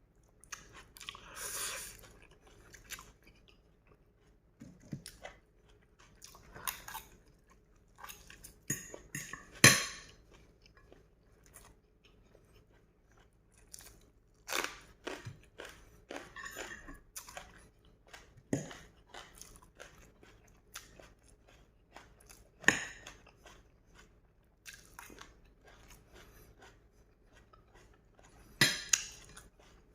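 Close-up chewing of noodles: irregular mouth clicks and short chewing bursts broken by pauses, with a few sharper, louder smacks scattered through.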